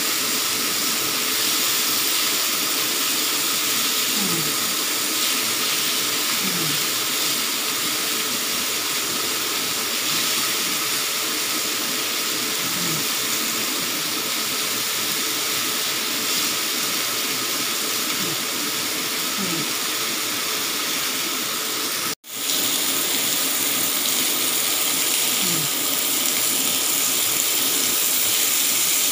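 Chicken sizzling on a ridged grill pan over a portable gas stove: a steady, even hiss, cut off for an instant about 22 seconds in.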